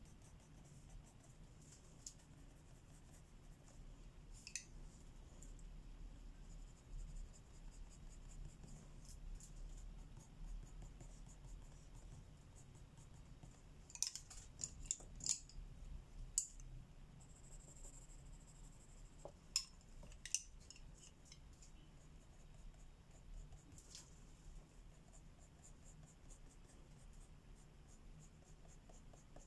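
Faint scratching of colouring strokes on paper. Clusters of sharp clicks come about halfway through and again about two-thirds through.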